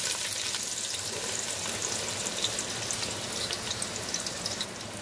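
Sliced onions frying in hot oil in a metal pot, freshly dropped in: a steady sizzle with scattered crackles that eases slightly toward the end.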